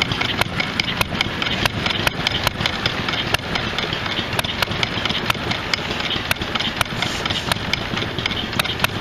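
Antique hit-and-miss gas engine running, with sharp exhaust pops coming two or three a second at uneven spacing over a steady mechanical clatter.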